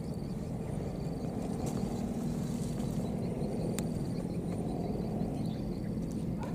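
Steady low outdoor rumble with faint, high chirps repeating over it and an occasional soft click.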